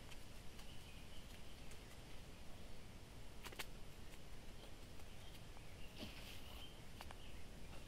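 Quiet handling sounds of potting up rooted hydrangea cuttings: potting soil rustling and a few light clicks of plastic pots, over a low steady rumble, with faint high chirps now and then.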